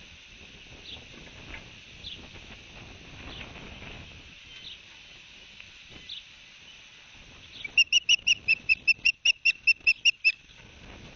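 Osprey calling: a rapid series of about fourteen loud, high whistled chirps lasting a couple of seconds, starting about three-quarters of the way in. Before it, faint single high chirps come about once a second over a steady hiss.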